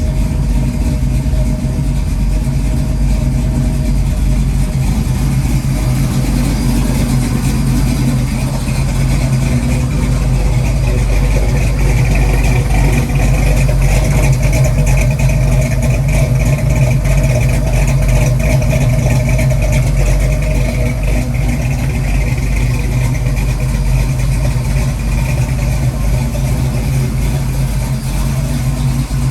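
Freshly rebuilt Ford 331 stroker small-block V8 idling steadily on a new hydraulic roller cam, a little louder through the middle. The idle is rough and untuned: the carburettor mixture screws still need adjusting.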